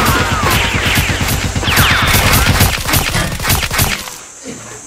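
Rapid gunfire sound effects, several shots a second, with swooping whistles that fall in pitch over them; the barrage cuts off about four seconds in.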